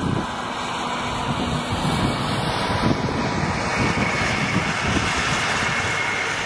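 EKG-4.6B electric rope shovel at work: a steady machine whine from its electric drives, with a low, uneven rumble as black soil drops from the dipper into a KAMAZ-6520 dump truck's body.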